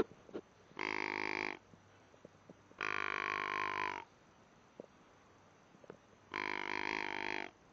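Hunting call sounded three times: three long, buzzy, grunt-like notes of about a second each, a second or two apart, the middle one falling slightly in pitch.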